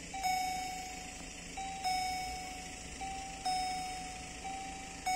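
EHL warning bells of a Polish automatic level crossing, ringing while the crossing is closed. Two bells of slightly different pitch strike out of step, each a little more often than once a second, and every strike rings out and fades.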